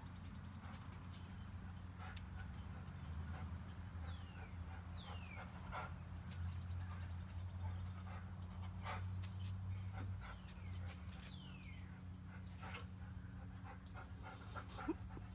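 Dog whining in short, high whimpers that fall in pitch, several times, amid quick scratching and clicking sounds, over a steady low hum.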